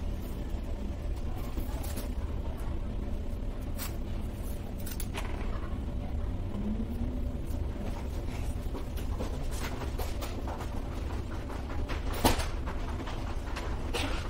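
Steady low rumble and hum of background noise, with a few light clicks and one sharper knock about twelve seconds in.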